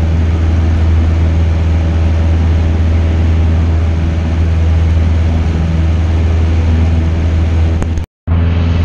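Cessna 172's piston engine and propeller droning steadily, heard from inside the cabin. The sound cuts out for a moment about 8 seconds in, then the same drone resumes.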